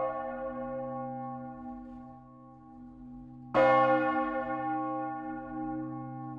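The great bell of a church, a large swinging bronze bell, struck by its clapper: a lighter strike right at the start, then a much louder one about three and a half seconds in, each ringing on with a long, humming tone. The strikes come irregularly and far apart, as the bell's swing dies down towards rest.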